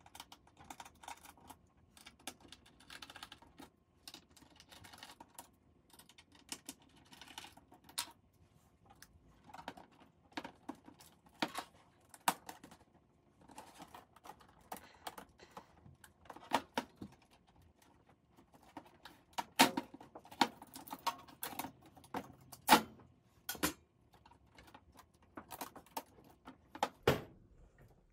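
Irregular small clicks, taps and scrapes of hands and a screwdriver working on a 30-inch Apple Cinema Display's LCD panel, its metal frame and plastic parts being unscrewed and pried apart. Sharper knocks come in the second half, the loudest three close together.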